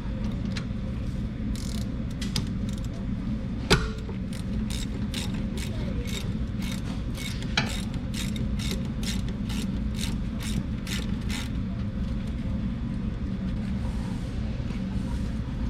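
Ratchet with a 14 mm socket clicking steadily, about two clicks a second, as it backs out a rear brake caliper bolt. There are two sharp knocks, near 4 seconds and near 8 seconds, over a steady low rumble.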